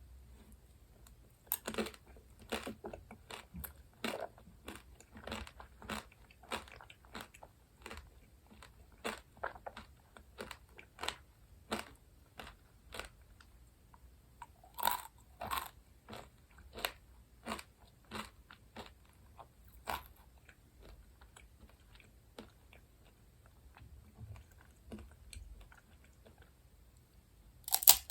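Close-miked eating sounds: irregular crisp crunching bites and chewing, with a quieter spell past the middle and a loud crunch at the very end.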